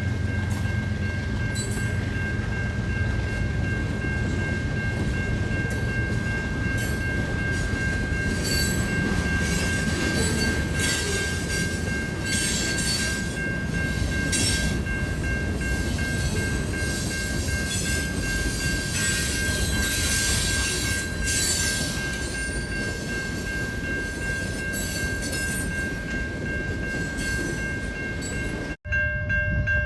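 Train passing at close range: a steady low rumble with bursts of sharp wheel clicks over rail joints, under a steady high-pitched whine. The sound cuts off abruptly just before the end.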